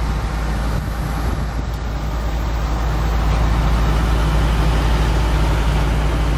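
Ford 4.6-litre SOHC modular V8 idling steadily, heard through the dual exhaust at the rear of the car as a low, even rumble that gets a little louder about three seconds in.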